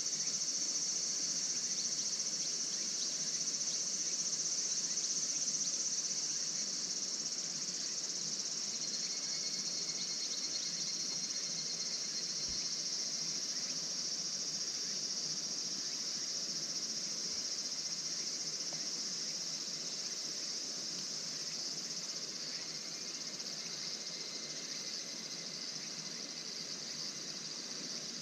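Steady chorus of crickets: a continuous high-pitched trilling that eases off slightly in the second half.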